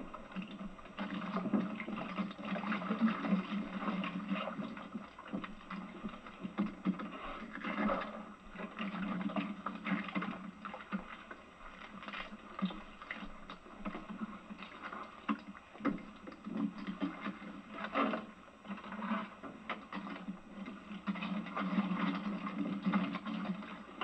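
Oyster tongs worked from a small boat: scattered knocks and clatter from the wooden shafts and the shells, over a continuous low wash that swells and fades.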